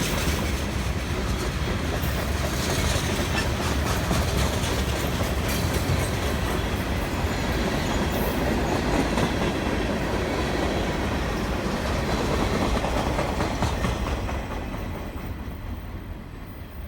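Loud, steady rumbling and clattering noise that fades away over the last few seconds.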